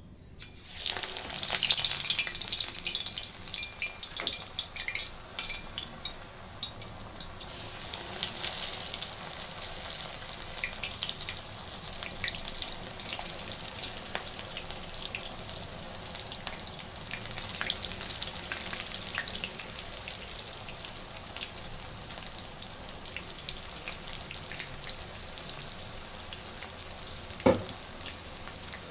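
Batter-coated green chillies deep-frying in hot oil: a sudden loud burst of sizzling and crackling as the first chilli goes in, a second surge about seven seconds in, then steady bubbling sizzle. A short knock near the end.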